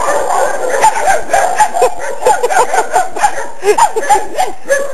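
Several black puppies yapping: a rapid, overlapping run of short high yips and barks.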